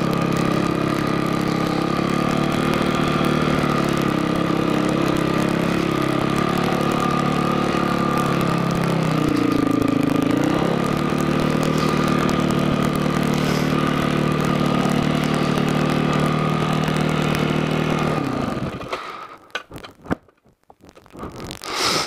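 Dirt bike engine running steadily at low revs while climbing a rocky trail, with one brief dip and rise in pitch about halfway through. Near the end the engine cuts out and the sound drops away.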